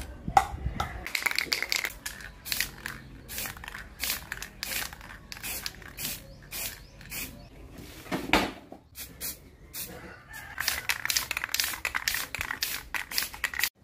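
Aerosol spray paint can sprayed in many short hissing bursts, one after another. A louder thump comes about eight seconds in.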